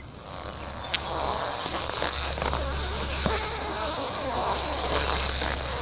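An old bicycle's flat tires squeaking as the wheels roll, over a steady hiss that swells and fades.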